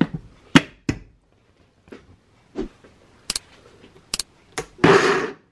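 Sharp clicks and knocks of a plastic blender lid being pressed and snapped onto a jar of whole sunflower seeds. Near the end comes a short rushing burst, the blender briefly pulsing on the dry seeds.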